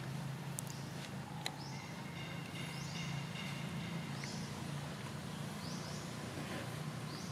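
Outdoor ambience: a short, high, rising chirp repeating about every second and a half over a steady low hum, with two sharp clicks in the first second and a half.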